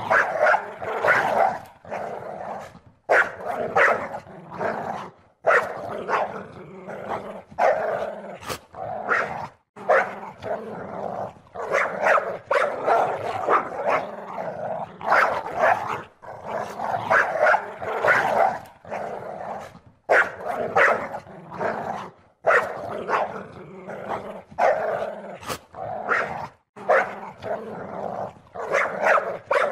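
African wild dogs vocalizing: a busy chatter of calls in short stretches, broken every few seconds by sudden brief gaps where the recording is spliced.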